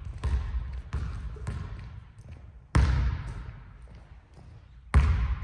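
Basketball bouncing on a hardwood gym floor: about five sharp, irregularly spaced bounces, each echoing in the large hall.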